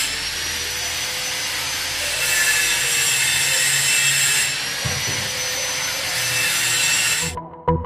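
A motor running with a steady whine over a loud rush of air, shifting in level a few times and cutting off suddenly near the end.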